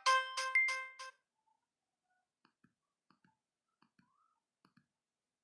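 Polyphonic Nokia ringtone playing through a Sony Ericsson G700 phone's speaker, cutting off suddenly about a second in. After it, four faint pairs of short clicks.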